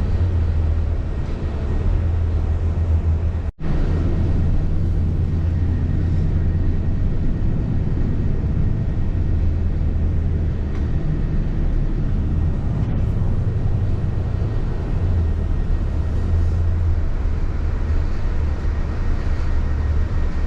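Nova Bus LFS city bus heard from inside the cabin: a steady low drone from the engine and drivetrain over a constant rumble of road noise. The sound cuts out for a split second about three and a half seconds in.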